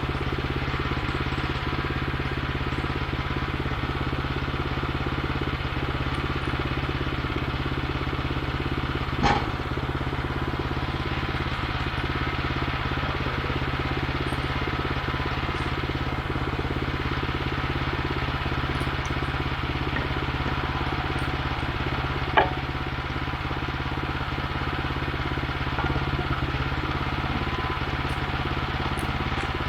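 Gasoline engine of a portable bandsaw sawmill running steadily, with two short knocks.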